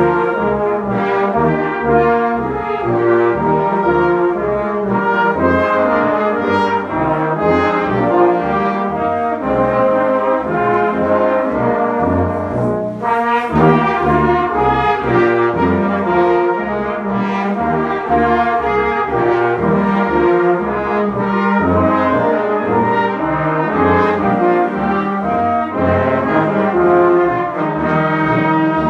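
Brass band of cornets, euphoniums and tubas playing a piece together in harmony, continuous and steady.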